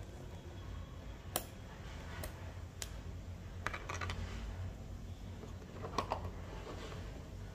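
Plastic keycaps being handled and set down, giving a few separate sharp clicks and taps at uneven intervals over a low steady hum.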